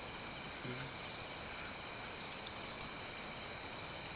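Night-time crickets: a steady high-pitched trill with a faint chirp repeating about twice a second.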